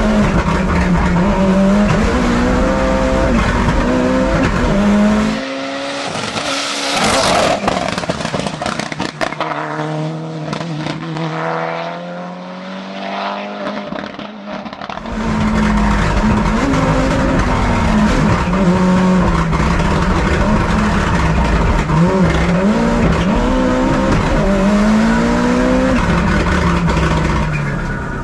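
Mitsubishi Lancer Evolution's turbocharged four-cylinder engine revving hard, its pitch climbing and dropping again and again with the gear changes, heard inside the car. From about five to fifteen seconds in it is heard from the roadside as the car weaves through a cone slalom, with tyres squealing. Then it is inside the car again, fading out at the very end.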